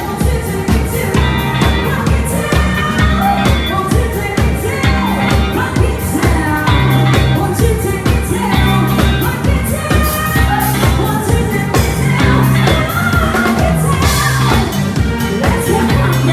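Live pop band playing: a drum kit beats steadily under held bass notes and keyboard chords, with a wavering lead melody on top. The mix is heard raw through a phone's microphone in the room.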